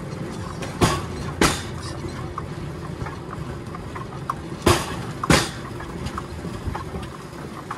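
Steel wheels of a pedal-powered railway bike rolling along the rails with a steady rumble, and two pairs of sharp clacks as the wheels cross rail joints, the second pair about four seconds after the first.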